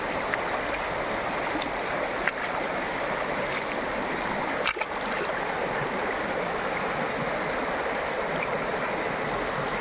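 Flowing canal water making a steady rushing sound, with a faint click about halfway through.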